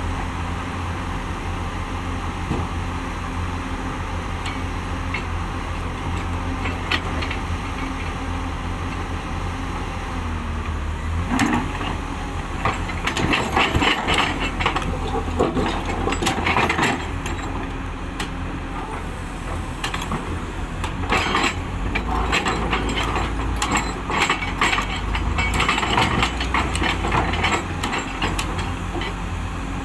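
Heavy diesel earthmoving machine running steadily, with two long spells of loose rock clattering and scraping as material is dug and dumped, starting about a third of the way in and again past the middle.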